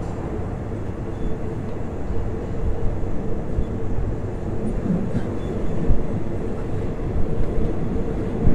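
Passenger train running on the rails: a loud, steady rumble with a steady hum and a few low knocks.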